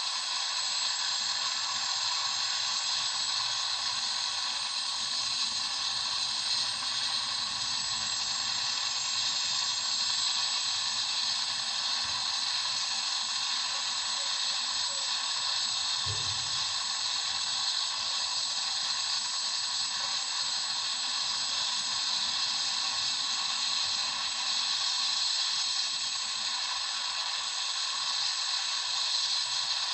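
Helicopter running steadily: an even hissing whine made of many fixed pitches, with little low rumble and no audible rotor beat.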